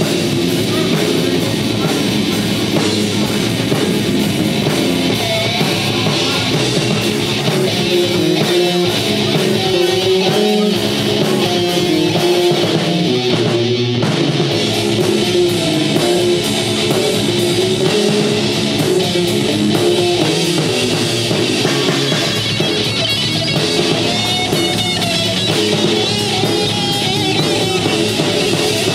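A heavy rock band playing live and loud: distorted electric guitar, bass guitar and drum kit together, in a steady, continuous passage.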